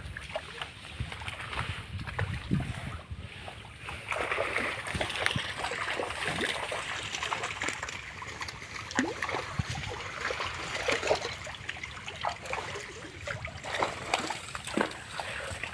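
Shallow water sloshing and trickling with many small scattered splashes as a fine-mesh seine net is drawn through it.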